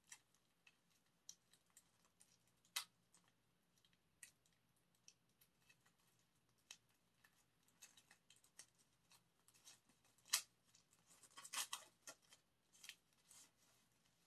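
Faint, scattered clicks, taps and rustles of hands handling a cardboard album package and its paper and plastic inserts, with a sharper click about three seconds in, another about ten seconds in, and a denser run of crackly rustling shortly after.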